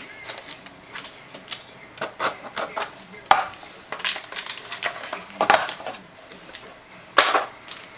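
Handling noises of a trading-card box being opened: a string of light clicks and taps, with three louder scrapes of cardboard or wrapper.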